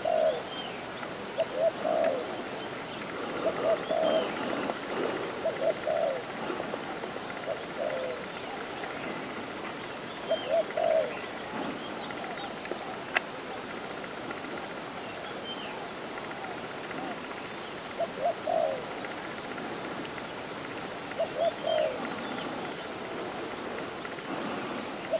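Doves cooing: short low coos in small groups, repeating every couple of seconds, over a steady high-pitched whine.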